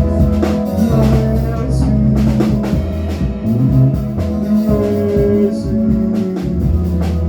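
Church worship music played live: a drum kit beating steadily under a deep bass line and held chords.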